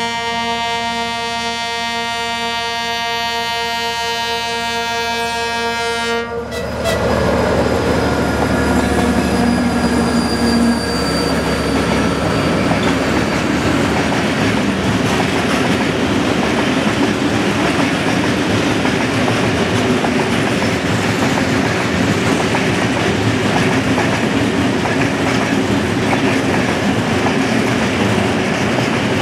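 MÁV M62 two-stroke V12 diesel locomotive hauling a loaded ore train. For about six seconds there is a loud, steady note with many overtones, which ends abruptly. Then comes the loud, steady noise of the locomotive and the ore wagons rolling past.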